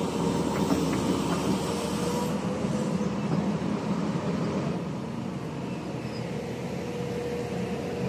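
Crawler excavator's diesel engine running steadily, with a thin, steady whine over the low engine sound.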